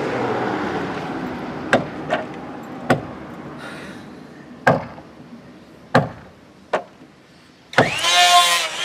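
Six sharp, irregular knocks of hammer blows on a wooden boat hull. Near the end, an electric hand planer starts up abruptly and runs loudly.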